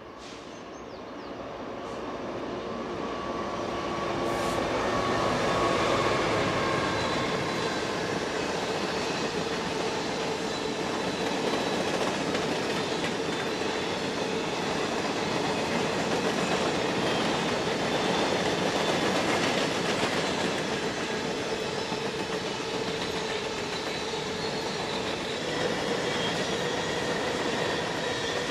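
A train rolling past on the main line, growing louder over the first several seconds and then running steadily, with a steady high whine over the rumble of the wheels.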